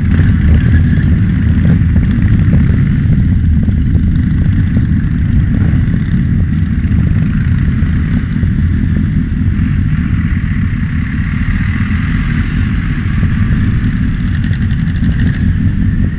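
Motorcycle engine running close to the microphone, a steady low rumble.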